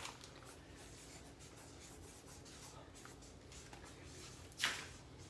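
Pens writing on paper notepads: faint, intermittent scratching of pen tips on paper. A short, louder hiss comes near the end.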